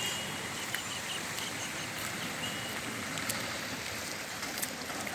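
Steady hiss of water outdoors, with a few scattered clicks and a short run of high chirps in the first second or so.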